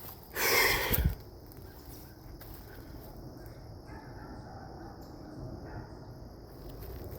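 One short, harsh, hoarse call-like sound lasting under a second near the start, then quiet rustling of footsteps pushing through forest undergrowth. A steady high-pitched whine sits underneath throughout.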